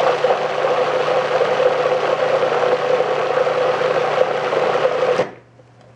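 Food processor running with its blade attachment, mixing eggs and heavy cream: a steady motor hum that cuts off about five seconds in.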